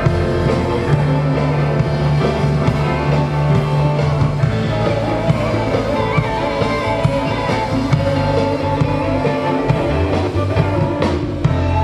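Rock band playing live: electric guitar over held bass notes and a steady drum beat.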